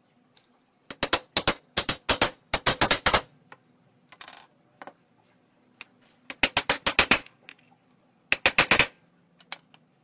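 A hammer striking metal in rapid sharp taps, several a second, in three runs: about a dozen blows starting about a second in, another run of about seven past the middle, and a short run of about five near the end.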